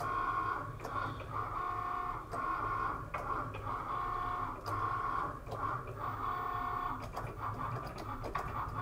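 Cricut Maker cutting with its fine-point blade: the carriage and roller motors whine steadily in runs of about a second, stopping and restarting with small clicks as the carriage changes direction.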